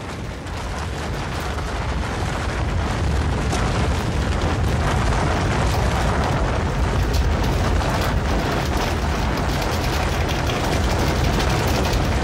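A loud, continuous rumbling roar with crackle through it, like an eruption or explosion. It swells over the first two seconds or so, then holds steady.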